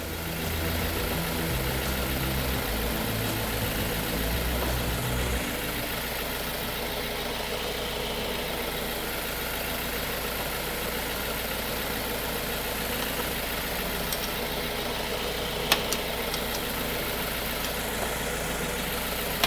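BMW car engine idling steadily, its low hum easing slightly about five seconds in, with a single sharp click about three-quarters of the way through.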